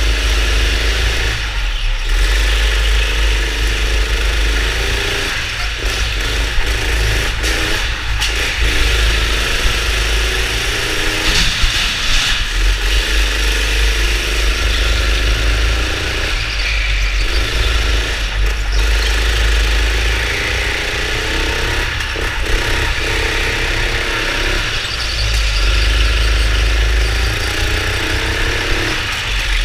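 Go-kart engine heard from a camera mounted on the kart, revving up and rising in pitch along each straight, then cutting back into the corners, again and again. A heavy low rumble runs under it, with a few short knocks.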